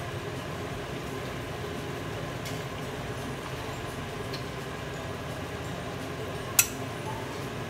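Metal tongs serving stir-fried noodles from a wok into a ceramic bowl: a couple of faint taps, then one sharp clink of the tongs against the bowl near the end, over a steady background hum.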